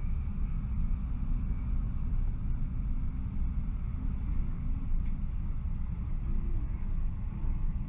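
Steady low rumble of a Boeing 767-300's cabin noise, engines and airflow heard from inside the passenger cabin.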